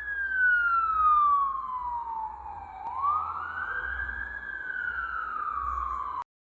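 Ambulance siren wailing, its pitch rising and then falling slowly in long sweeps of about four seconds, with a low rumble underneath. It cuts off abruptly near the end.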